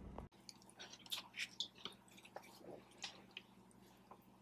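A person chewing a mouthful of BBQ pulled pork sandwich close to the microphone: faint, irregular mouth clicks and smacks.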